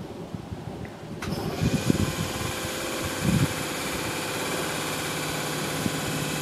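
Electric multiple-unit passenger train approaching along the track. About a second in, a steady whine with many fixed tones, over a noise of wheels on rails, comes in and holds. Wind buffets the microphone.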